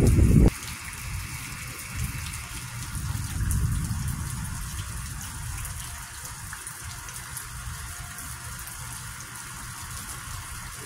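Thunderstorm rain falling in a steady hiss with gusty wind, a low rumble underneath that swells about three to four seconds in. A louder low rumble at the very start cuts off suddenly about half a second in.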